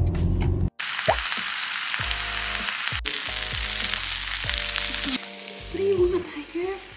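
Sliced pork belly sizzling on an electric grill pan, a steady frying hiss that starts suddenly just under a second in and stops about five seconds in, with background music throughout.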